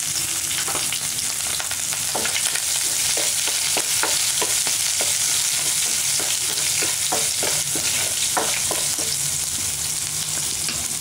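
Chopped ginger and garlic sizzling in hot oil with mustard seeds and dals in a non-stick pan: a steady sizzle. Over it come frequent short ticks and scrapes, thickest through the middle, as a spatula stirs the mixture against the pan.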